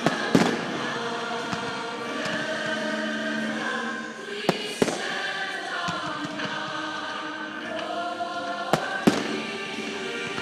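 Fireworks bursting in the sky: about six sharp bangs, coming in pairs near the start, around the middle and near the end, over choral music with singing.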